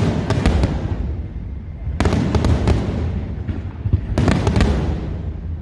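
Fireworks display: aerial shells bursting with loud booms about every two seconds, three in all, each trailing off in a long rumble, with a quick run of sharp cracks just after the first.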